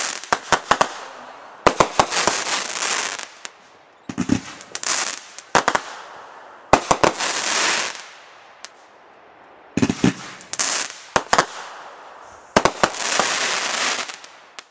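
Consumer firework cakes firing in volleys: every two to three seconds a cluster of sharp launch reports and bangs, each followed by about a second of high crackling hiss from the bursts.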